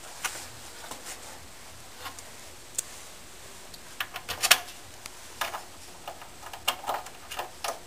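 Scattered small clicks and taps of hands fitting a knob to a sewing cabinet door and handling the door and its plastic storage bins. The loudest cluster of clicks comes about four to four and a half seconds in.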